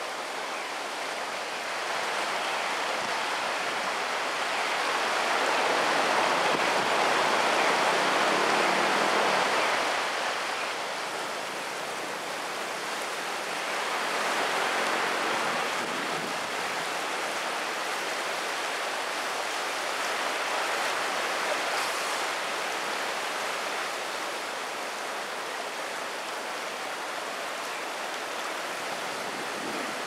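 Floodwater of a swollen, fast-flowing river rushing past in a steady noise, swelling louder for a few seconds about a quarter of the way in and again briefly around the middle.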